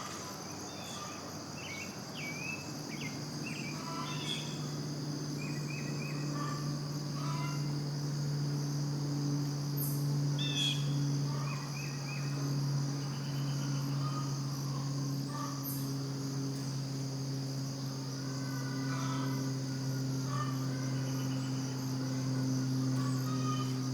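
Farm ambience of crickets chirring steadily, with scattered short bird chirps. A low steady hum fades in about four seconds in and lasts to the end.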